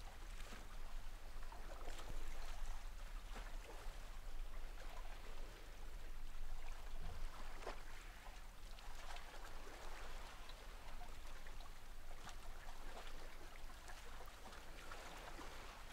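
Faint steady hiss that swells and eases every few seconds, with a few soft clicks; no speech.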